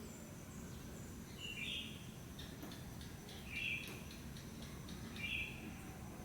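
A bird repeating a short, rough call three times, about every two seconds, over a steady low background rumble and a faint steady high-pitched whine.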